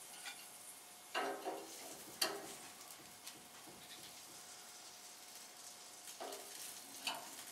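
Chicken sizzling faintly on a gas grill. It is broken by a few sharp clicks and clinks as the pieces are lifted off the grate onto a plate.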